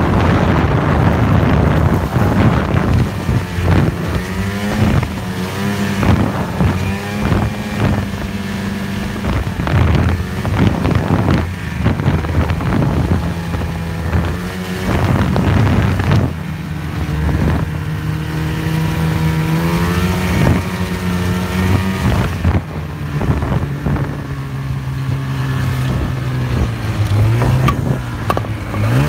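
Snowmobile engine running at speed along a trail, its pitch rising and falling with the throttle, with wind buffeting the microphone.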